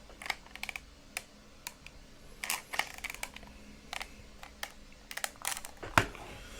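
Irregular light clicks of small buttons being pressed, some in quick runs of two or three, over a faint steady hum.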